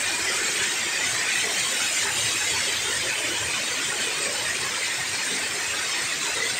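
Steady rush of river water pouring over a concrete weir, a constant even roar.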